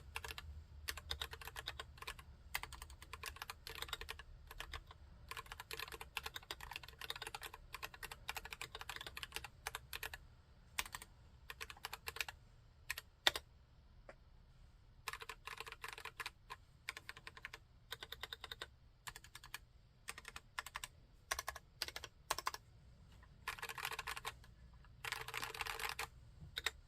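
Typing on a Cox CA108BT full-size aluminium-case mechanical keyboard with Gateron Brown tactile switches. Fast runs of keystrokes with short pauses give way to a few single key presses around the middle, then two quick dense flurries near the end.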